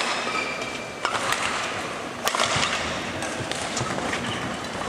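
Noisy ambience of a large indoor sports hall between badminton rallies, a steady hiss of crowd and room noise with a few sharp taps or knocks scattered through it.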